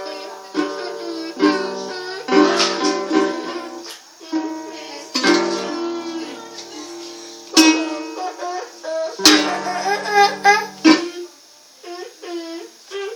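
Chords strummed on a small plucked string instrument, in short irregular runs of strums that each ring out, with pauses and restarts between them.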